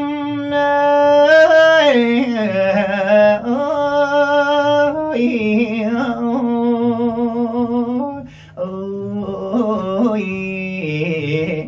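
A man singing a long, drawn-out melismatic line in Thai lae style, holding vowels with vibrato and sliding between pitches. He breaks briefly for breath about eight seconds in and comes back on a lower note.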